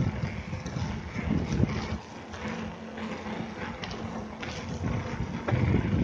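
Wind rumbling on the microphone of a moving bicycle, with tyre noise on asphalt and a few light clicks from the bike. The rumble eases off about two seconds in and comes back strongly near the end.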